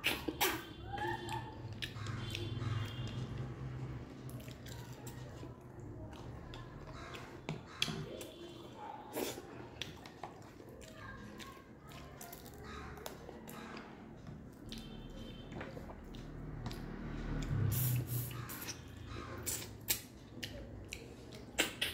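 Close-up eating sounds: a mouth sucking and chewing at a mutton shank bone and mouthfuls of rice, with many short wet smacks and clicks and a few brief squeaky slurps.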